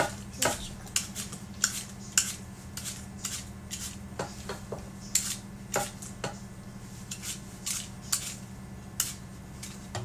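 Knife cutting the peel off an apple by hand: short crisp cuts and scrapes, irregular, about one or two a second, over a steady low hum.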